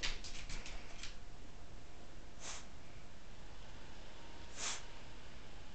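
Australian cattle dog giving two short, airy nasal snorts, about two seconds apart, sneezes offered while it is being trained to sneeze on cue.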